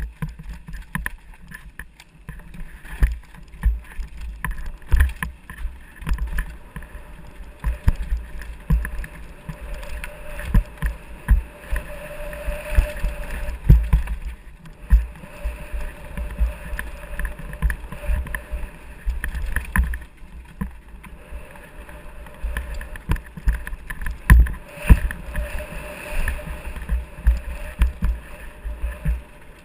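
Downhill mountain bike rattling and knocking over rough forest trail at speed, with irregular hard thuds from roots and bumps. A low wind rumble on the camera microphone runs under it.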